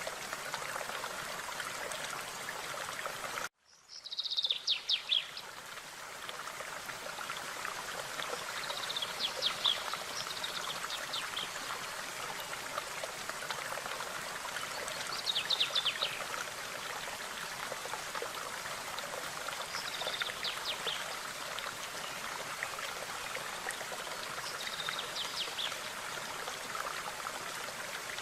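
Stream running steadily, with a songbird repeating a short, rapid chirping phrase about every five seconds. The sound drops out for a moment about three and a half seconds in, where the recording is spliced.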